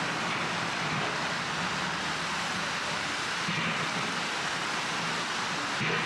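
Steady breeze through park trees and over fallen leaves, a continuous even rushing rustle, with a faint low hum underneath.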